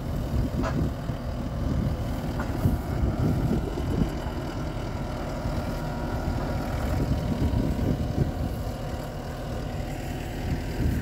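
Tractor engine idling steadily, with an uneven low rumble over it.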